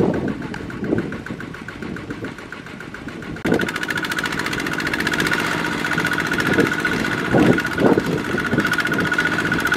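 Two-wheel walking tractor's single-cylinder diesel engine running steadily under load as it strains to pull a loaded rice trailer through deep mud, with a fast even chugging. It gets louder about a third of the way in.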